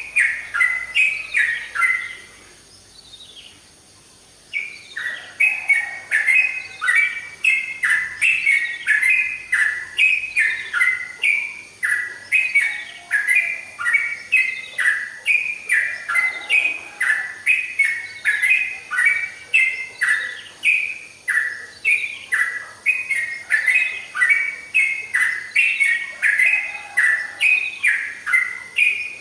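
Yellow-vented bulbul (trucukan) singing a rapid series of short falling notes. It breaks off about two seconds in, then resumes after a couple of seconds and sings without pause.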